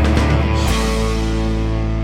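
Music: a rock track with drums whose beat stops less than a second in, leaving a held chord ringing.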